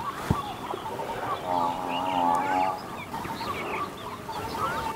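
Small birds chirping, with a chicken's drawn-out, wavering call lasting about a second near the middle.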